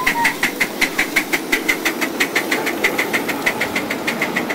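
Live-steam miniature locomotive running past at speed, its exhaust beating in a quick, even rhythm of about six chuffs a second.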